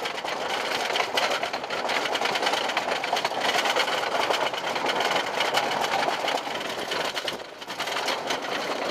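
Apocalypse wooden roller coaster's chain lift hauling the train up the lift hill: a fast, even clatter of chain and ratchet clicks. It dips briefly about seven and a half seconds in.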